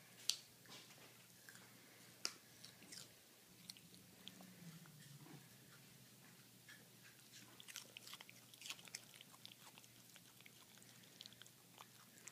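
Toy poodle biting and chewing pieces of raw carrot: irregular sharp crunches that come in bouts with short pauses between them.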